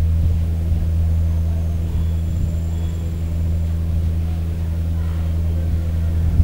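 A steady low hum with several unchanging pitches layered together.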